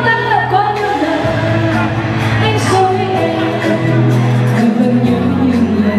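Live pop music: a woman sings into a handheld microphone over a live band, with sustained bass notes underneath.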